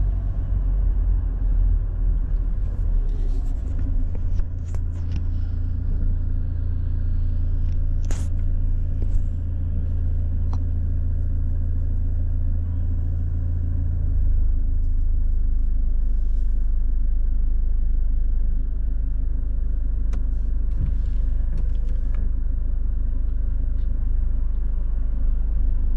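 Low, steady rumble of a car's engine and road noise heard inside the cabin, driving slowly and then sitting in traffic. The rumble changes about halfway through, and a few faint clicks are heard along the way.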